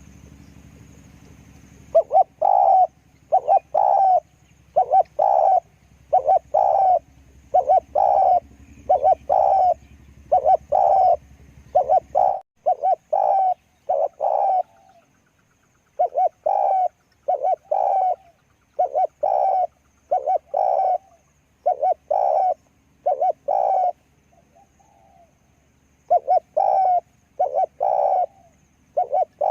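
Spotted dove cooing over and over in short repeated phrases, with brief pauses between runs.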